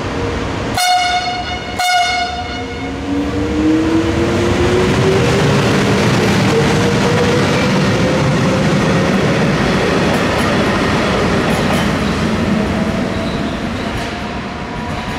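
Two short horn blasts from an FS E.652 electric locomotive, then the locomotive and the RFI Falco diagnostic vehicle it hauls running past with a loud rumble. A whine rises slowly and steadily in pitch as the train gathers speed.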